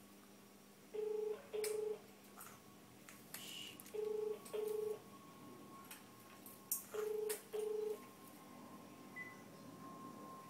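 Telephone ringback tone on an unanswered call: three double rings in the British 'brr-brr' pattern, about three seconds apart.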